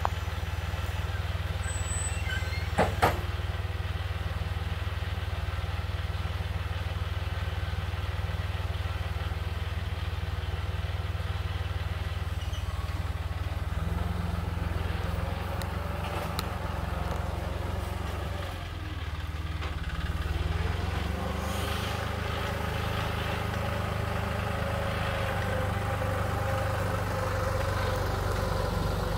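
Farm tractor engine idling steadily, then revving up and running harder in the second half as the tractor moves off. A single sharp click about three seconds in.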